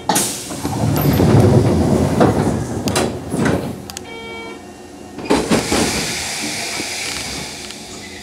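Pneumatic doors of a Nishitetsu 2000 series train sliding shut: a sudden air hiss and rumble lasting a couple of seconds. A brief tone follows about four seconds in, then a second burst of air hiss about five seconds in that fades away.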